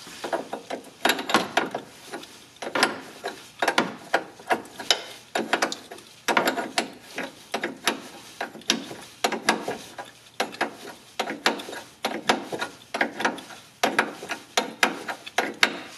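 Aluminium AN wrench on the AN fitting of an oil line, clicking against the hex as it is fitted, swung and refitted to thread the fitting back on. Repeated clusters of sharp metallic clicks, a few every second.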